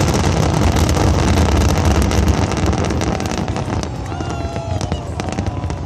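Wind buffeting the microphone over a loud outdoor background, with voices heard from about four seconds in.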